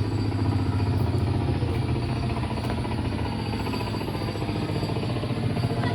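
A motor or engine running steadily with a low hum, with a few faint clicks over it.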